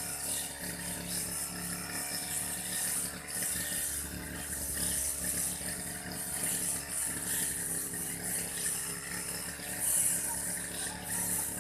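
Old Aldo grass-cutting machine running steadily while cutting grass, its engine hum under a hiss that swells and fades as it works through the grass.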